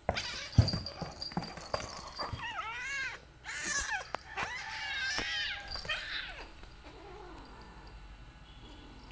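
Two cats play-fighting, one crying out in drawn-out, rising-and-falling yowls in two stretches, around three seconds in and again around five seconds. A sharp thump and scuffling of their bodies on the floor come near the start.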